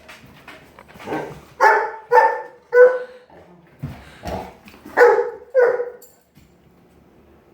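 A dog barking in short, sharp barks: three in quick succession, then after a short gap two more.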